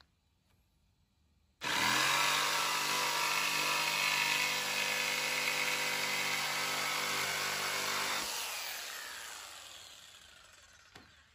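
Electric jigsaw cutting through a wooden pallet slat. The saw starts abruptly about one and a half seconds in and runs steadily for about six and a half seconds, then dies away over the last few seconds.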